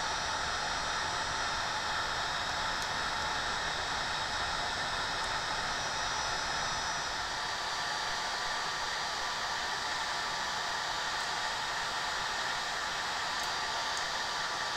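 Handheld electric heat gun running steadily, an even rushing hiss of blown hot air with a faint steady whine.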